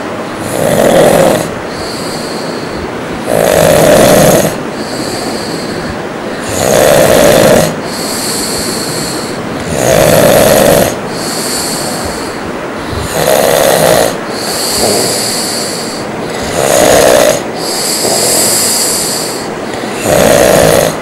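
A man snoring loudly and regularly, one harsh snore about every three seconds, each lasting about a second, with a fainter high hiss between snores.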